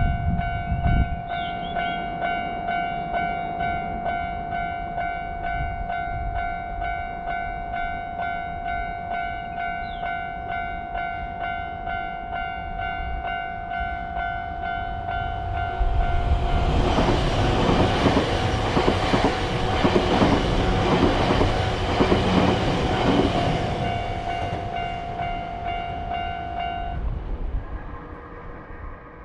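Japanese level-crossing warning bell ringing over and over in a steady 'kan-kan' clang. About halfway through, a train passes over the crossing with a loud rattle of wheels on rail joints for several seconds. The bell stops suddenly near the end.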